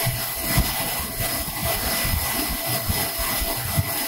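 Steady whir of a Focus Alpha Max 6250 UV flatbed printer's fans and vacuum table, an even hiss with a few faint steady whine tones over an uneven low rumble.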